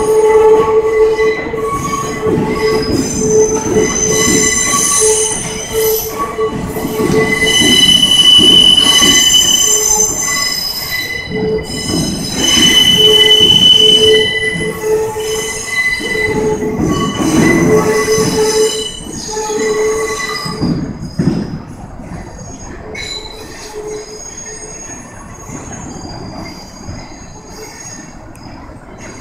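R62 subway train's steel wheels squealing against the rails as it pulls away, over a low rumble. Several high squeal tones come and go, loudest around 8 and 13 seconds in, then the sound fades away after about 20 seconds.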